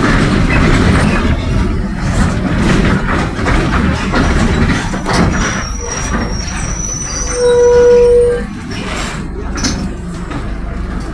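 Cabin noise of a Mercedes-Benz OF-1722M bus (Caio Apache Vip 2 body) on the move: engine and driveline running with rattles and road rumble, on a bus whose differential growls. About two thirds through, a steady buzzer-like tone sounds for about a second, louder than everything else, and the running noise eases after it.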